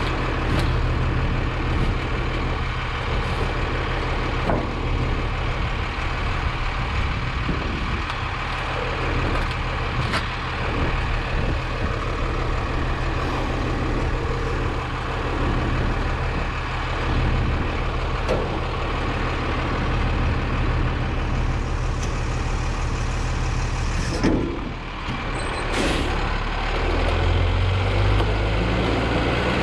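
New Way automated side-loader garbage truck's engine idling steadily, with scattered knocks and clatter as trash in the hopper is shifted by hand. Near the end the engine speeds up as the hydraulic packer starts its cycle.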